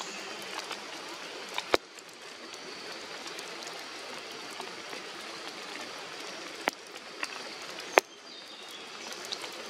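Steady rain falling in the forest, an even hiss, with three sharp taps standing out at about two, seven and eight seconds in, the last the loudest.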